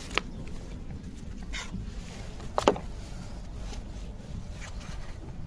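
Bookstore background hum with two short knocks, a light one just after the start and a louder one about two and a half seconds in, among faint rustles.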